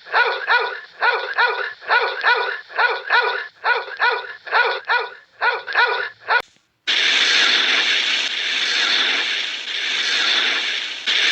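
An animal giving a rapid run of short, high-pitched yapping calls, about three a second, that stops about six seconds in. A steady hissing noise starts half a second later and runs on.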